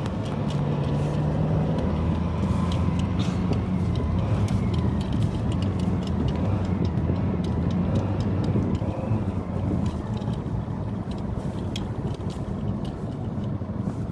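A car's engine and tyre noise, heard from inside the cabin while driving on a rough mountain road: a steady low hum with a hiss of road noise and light scattered clicks.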